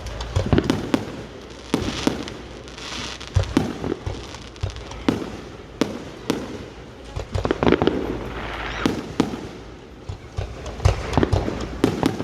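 Fireworks going off: sharp bangs and pops at irregular intervals, some in quick clusters, with stretches of crackling hiss between them.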